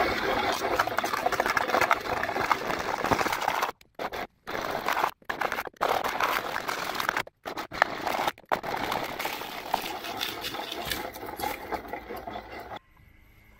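Homemade dual-shaft plastic shredder, belt-driven by a 1 hp three-phase motor, chewing up a clear plastic container with a dense crackling and crunching. The sound cuts out abruptly several times and stops shortly before the end.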